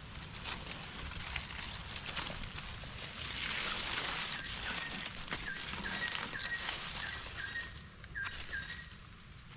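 Rustling and handling of ferns and leaf litter as a small mushroom is cut out of the ground with a knife, with soft clicks. From about halfway through, a bird gives a run of short, repeated notes, two or three a second.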